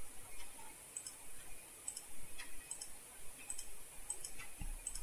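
Computer mouse button clicking, a string of soft, irregularly spaced clicks as items are picked from drop-down lists.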